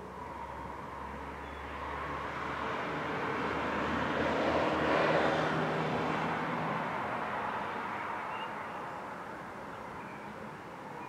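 A passing vehicle: a broad noise that swells to a peak about five seconds in and then fades away.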